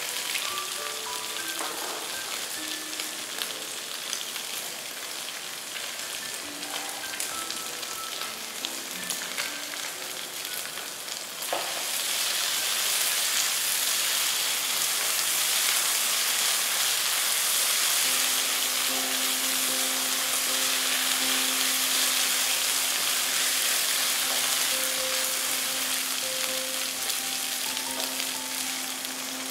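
Diced meat and onion sizzling in a hot wok while being stirred with a wooden spatula. The sizzling gets louder about a third of the way through and then stays steady.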